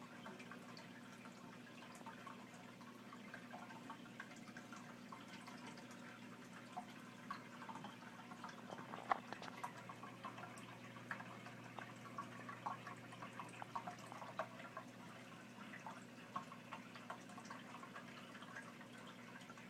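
Bearded dragon eating: faint, irregular small clicks and crunches of its jaws, one sharper click a little past the middle, over a steady low hum.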